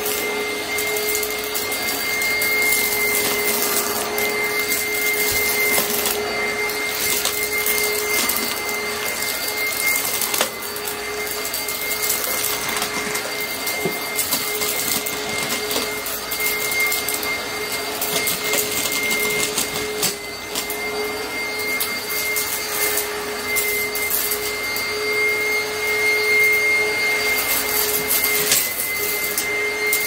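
Oreck XL upright vacuum cleaner running steadily on a shag rug, its motor giving a continuous high whine. Occasional sharp clicks and rattles come through as grit and debris are sucked up.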